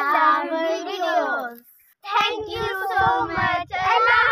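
Several young girls' voices chanting together in a sing-song way, in two phrases with a short break about halfway through. Low thuds sound under the second phrase.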